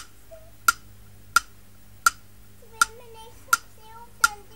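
A clock ticking at a steady, even pace, about three ticks every two seconds. A young child's voice sounds over the ticks in the second half.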